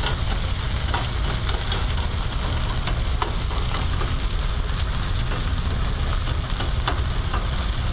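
Shredded potatoes frying in butter and olive oil in a hot non-stick pan, giving a steady sizzle. A few light taps come from a fork and spatula working the edge of the potato cake, over a steady low rumble.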